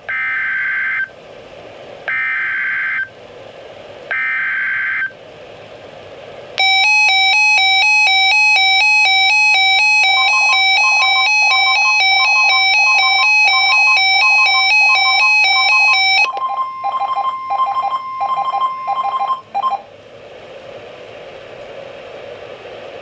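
NOAA Weather Radio emergency alert coming in over a receiver, announcing a flash flood watch: three short, buzzy SAME data bursts, then a loud warbling electronic alarm from the alert receiver, joined partway through by the steady 1050 Hz weather-radio alert tone. Near the end the warble gives way to quick pulsed beeps over that tone, which stops suddenly, leaving radio hiss.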